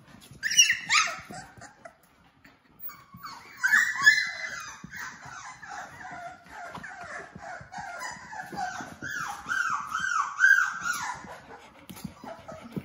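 Young Labrador retriever puppies whining and yelping: two short high cries about half a second in, then from about three seconds a long run of repeated whines, each falling in pitch, that stops about two seconds before the end.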